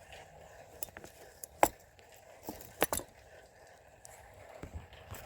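About half a dozen sharp clicks and knocks, the loudest about a second and a half in: handling noise from a phone being fitted into a makeshift holder.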